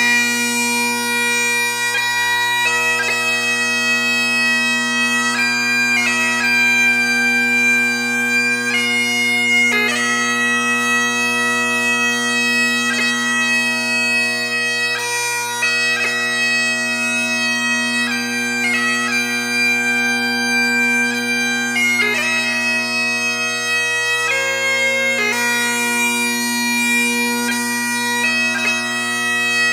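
Bagpipe music: a slow melody played over steady, unbroken drones.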